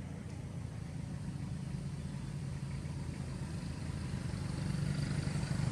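A motor engine running steadily in the background, a low hum that grows louder toward the end.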